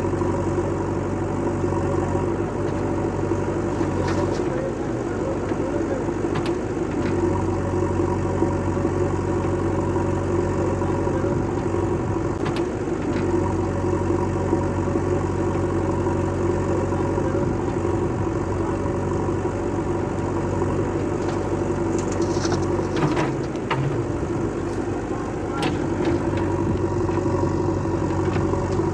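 Heavy diesel engine running steadily, with a few sharp knocks spaced several seconds apart.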